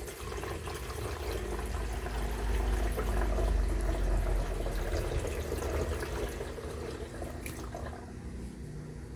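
Water running from a tap, filling the humidifier's water tank; the flow grows louder over the first few seconds and eases off near the end.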